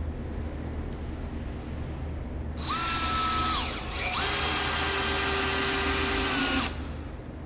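Cordless drill boring into stacked 2x10 lumber in two runs: a short one of about a second, then after a brief pause a longer one of about two and a half seconds. The motor whine rises quickly to a steady pitch each time and stops when the trigger is released.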